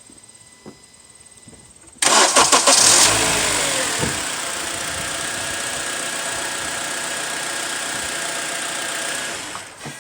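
2008 Honda Accord engine cranking and catching about two seconds in, flaring up briefly, then settling into a steady idle. It starts quickly now that the corroded battery terminals have been cleaned. The sound falls away near the end.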